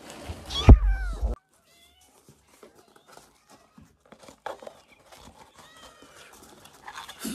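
A smartphone knocked over by a kitten hits with a loud clatter and heavy thump close to the microphone, a kitten mewing over it. Then kittens mew softly among small clicks and taps.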